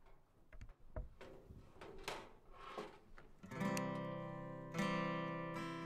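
A few light knocks of tools being set into a steel tool box tray, then acoustic guitar music with strummed chords comes in about halfway through and is the loudest sound.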